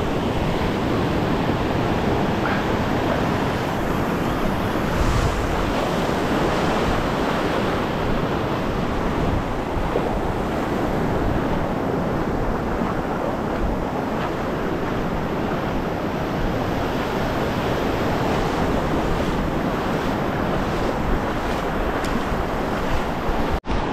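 Surf on a sandy ocean beach, a steady rush of breaking waves with wind buffeting the microphone. The sound drops out for an instant near the end.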